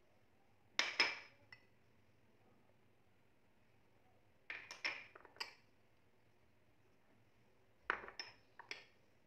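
Small ceramic bowls set down on a hard countertop, clinking in three short groups of knocks.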